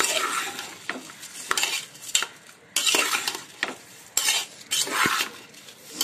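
A spoon stirring and scraping washed basmati rice and sautéed vegetables in a pressure cooker, in uneven strokes with a few sharp knocks against the pot.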